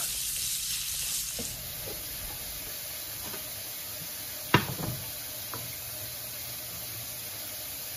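Ground beef sizzling steadily as it browns in a nonstick frying pan, with a few faint ticks and one sharp knock about halfway through.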